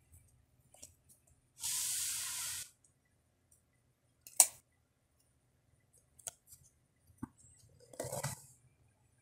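A second-long burst of even hiss about two seconds in, then a single sharp click a little past four seconds, which is the loudest sound, and a brief rustling burst near the end, as connectors on a car stereo head unit are handled.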